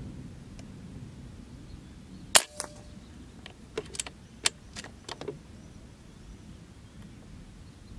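Artemis M22 PCP air rifle firing one shot: a single sharp crack, with a fainter click right behind it. A run of about six lighter clicks follows over the next three seconds as the shooter's hand works the rifle's action.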